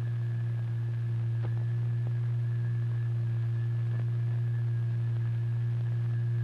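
A steady low pure tone with a few fainter overtones, holding one pitch throughout: the sine-wave tone that drives the vibrating plate or fluid layer in a cymatics experiment.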